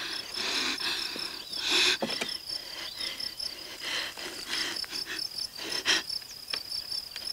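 Crickets chirping in a steady pulsing trill, with several short breathy bursts of noise over it, the loudest about two seconds in.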